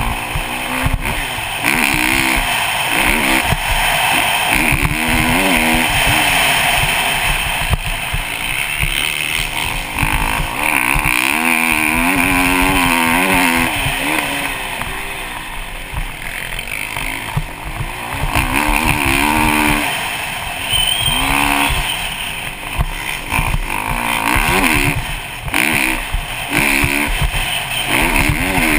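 Kawasaki KX450 motocross bike's four-stroke single-cylinder engine, ridden hard, its pitch rising and falling over and over as the throttle is opened and shut. Wind noise buffets the microphone throughout.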